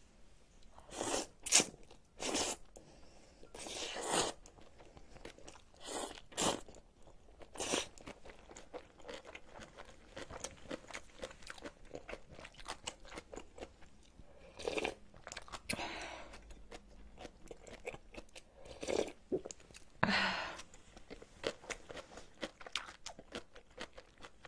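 Close-miked eating: ramyeon noodles slurped in several short pulls during the first eight seconds, then chewing with many small wet clicks and crunches, broken by a few more slurps later on.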